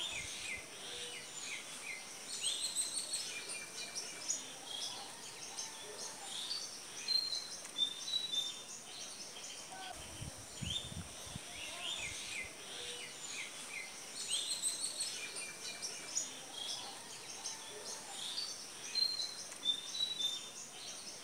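Small birds chirping and twittering: many short, high calls that overlap, over a faint steady hiss. The pattern of calls seems to repeat about every ten seconds, as in a looped birdsong track.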